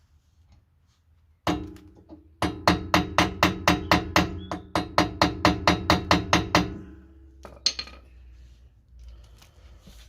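Hammer tapping on a rusted brake drum to loosen it: a single blow, then a fast steady run of about twenty blows, about five a second, the metal ringing after each, and one last blow near the end.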